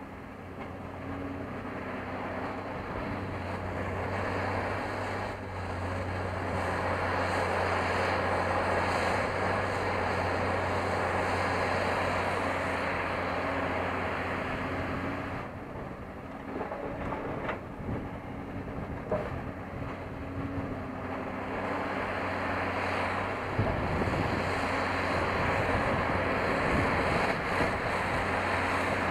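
Caterpillar 349L excavator's diesel engine working under hydraulic load through its dig, swing and dump cycle, a steady low hum that grows louder a few seconds in, eases around the middle and picks up again later.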